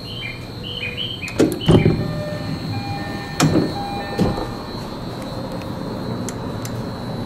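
JR E131-series commuter train door: a repeated two-note electronic chime as the button-operated door opens, with a heavy sliding thud about a second and a half in. A few sharp clicks and knocks follow.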